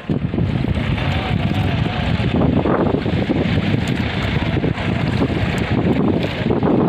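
Wind buffeting the microphone aboard a wooden rowboat, over water splashing as the oar blade dips and pulls.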